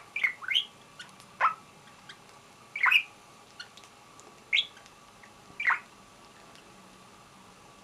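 Lutino budgerigar chirping: short, sharp calls that sweep down in pitch, several in quick succession at the start, then single chirps about every second or so.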